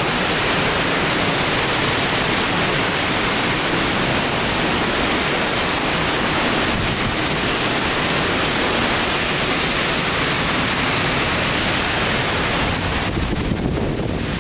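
Hurricane-force wind and driving rain: a loud, steady rush of noise, likened to a train going by.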